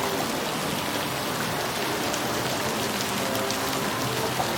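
Large public fountain, its water splashing down into the basin in a steady, even rush of spray.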